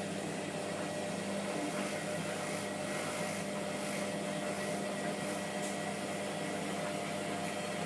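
Hotpoint WMF720P washing machine running with its drum full of suds, the motor giving a steady hum as it turns the drum and tries to get into a spin.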